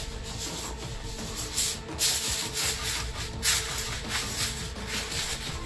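Aluminium foil crinkling and rustling in irregular bursts as a sheet is handled and pressed down over a foil pan.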